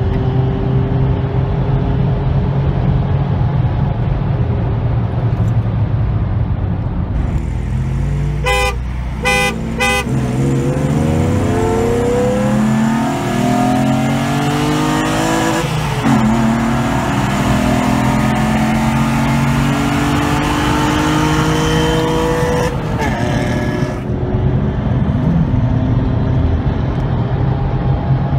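Car engines accelerating hard at motorway speed, heard from inside a car cabin over loud rushing wind. There are three short horn toots, then the engine pitch climbs, drops at a gear change about halfway, climbs again through the next gear, and eases off near the end.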